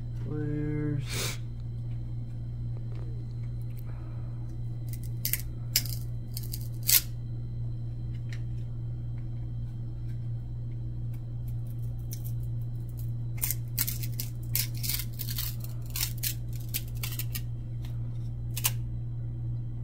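Football trading cards from old packs being peeled apart and flicked through by hand: scattered short snaps and rustles, a few around the middle and a dense run in the last third, as slightly stuck-together cards come apart without ripping. A steady low hum runs underneath.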